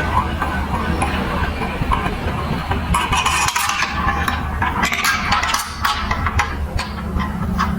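Marbles rolling and clicking through a plastic building-block marble run, with a busy run of sharp clicks and clinks from about three seconds in.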